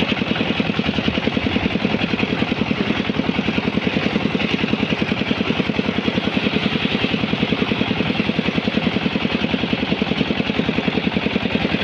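Engine of a mobile rice-hulling vehicle running steadily while it drives along, with a rapid, even beat.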